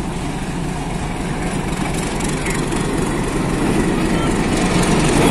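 Diesel locomotive engine running as the locomotive rolls slowly past close by, growing steadily louder as it draws alongside.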